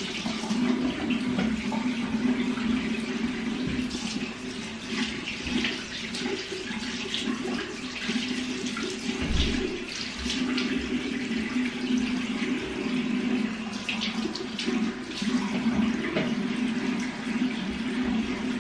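Bathroom sink tap running steadily while a small dog's paws are rinsed under it, the water splashing unevenly over a low steady hum.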